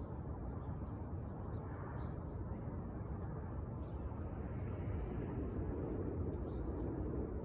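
Small birds chirping, many brief high chirps scattered throughout, over a steady low outdoor rumble that grows slightly louder about halfway through.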